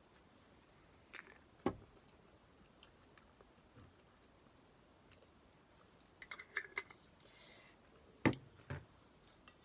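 Tableware and bottle handling: a few sharp knocks and clicks as a bottle is picked up, tipped over a glass bowl and put down. The loudest knocks come about a second and a half in and near the end, with a quick run of small clicks just before the end.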